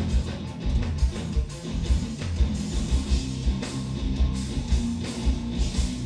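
Live instrumental progressive metal (djent) from a trio: two eight-string electric guitars playing over a drum kit, with fast, frequent kick-drum hits.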